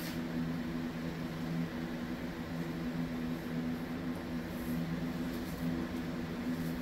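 Steady low hum of a running electric motor, a few even tones that hold level without a break.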